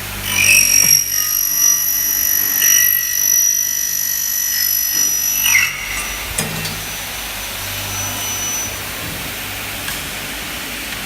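A double-head aluminium cutting saw, its 1.5 kW motor driving a 400 mm blade directly, cuts through a xingfa aluminium profile. The cut is a loud high-pitched screech lasting about five and a half seconds. After that the blade runs on without load.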